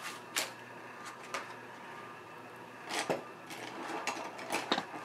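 Scattered light clicks and taps of art supplies being handled and picked through while searching for a pencil. There is a louder cluster about three seconds in and several more near the end.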